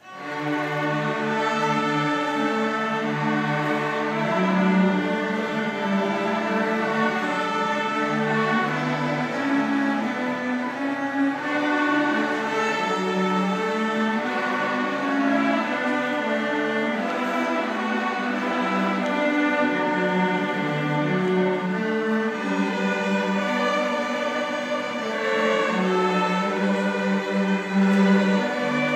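School string ensemble of bowed strings playing a classical piece, starting at the first note after a silence and going on with a steady melody over low bass lines.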